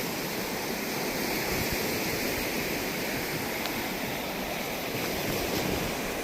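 Ocean surf washing onto the beach as a steady rush, with wind buffeting the microphone.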